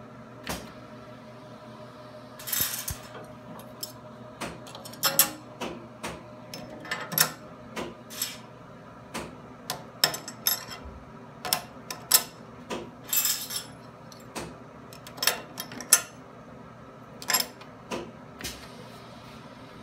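Irregular sharp clicks and clatter of plastic parts being handled in a metal fixture on a machine's rotary table, with a couple of brief hissing bursts, over a steady machine hum.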